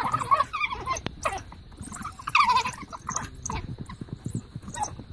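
African painted dogs giving short, high-pitched whining squeals and twittering calls in bouts, the loudest about two and a half seconds in, as they squabble over food at a fresh wildebeest calf kill.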